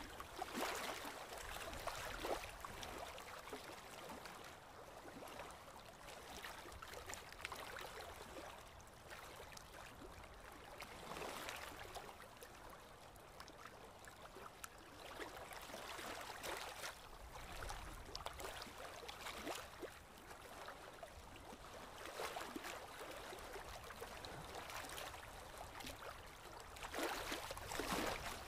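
Shallow stream water running, with short splashes and wet sloshing every few seconds as a wet fishing net and the catch are handled in the water.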